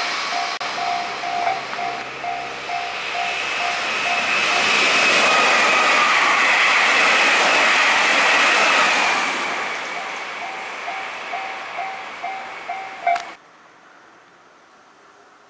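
Level-crossing alarm bell ringing in an even beat, about two to three strokes a second, while a Meitetsu electric train passes at speed. For a few seconds in the middle the train's loud wheel-and-rail noise and a high whine drown the bell. The bell keeps ringing after the train has passed, then the sound drops away abruptly to a faint hiss.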